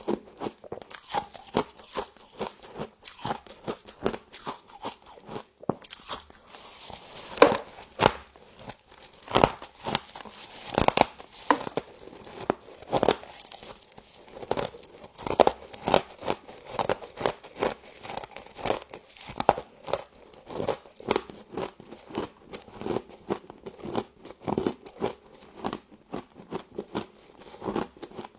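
A person biting into and chewing mouthfuls of frost, a quick run of crisp crunches that goes on steadily, with a denser stretch of crackling about a third of the way in.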